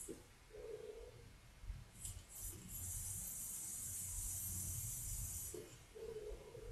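Faint airy hiss of a Smoktech Pyrex Mini tank with a 1.5-ohm cartomizer being drawn on, lasting about three and a half seconds from about two seconds in, then a soft exhale of vapour near the end.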